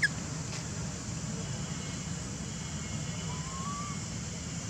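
A baby macaque crying in thin, high-pitched calls: a short sharp squeal right at the start and a faint rising coo about three seconds later. A steady low rumble runs underneath.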